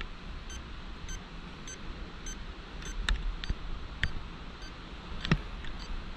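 Steady background hiss broken by a few sharp clicks, spread over the second half.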